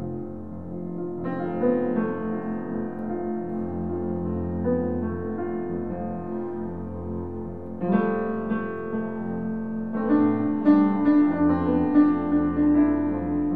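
Improvised duet of upright piano and bowed double bass: low sustained bass tones under piano chords struck about a second in, again around eight seconds, and in a quick run of loud chords near the end.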